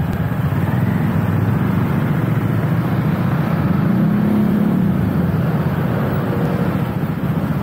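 Motor scooter engines idling and creeping at walking pace, the nearest a Honda PCX 150 single-cylinder scooter. A steady low engine hum, with one engine briefly revving up and dropping back about four seconds in.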